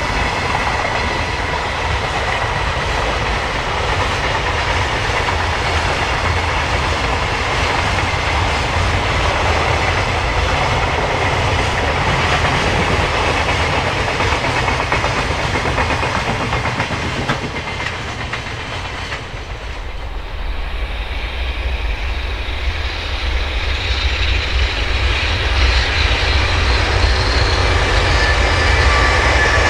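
Container freight wagons passing at speed, wheels clattering steadily over the rail joints. About two-thirds of the way through the sound drops away and a second freight train, led by an EH500 electric locomotive, comes closer and grows louder, with a high whine over the rail noise.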